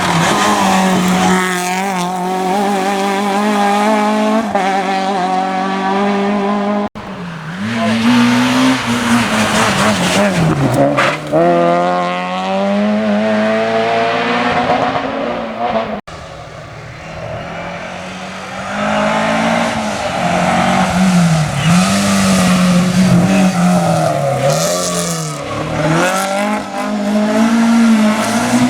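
Rally car engines revving hard, the pitch climbing and dropping again and again as they accelerate, change gear and lift off, in three separate passes cut one after another.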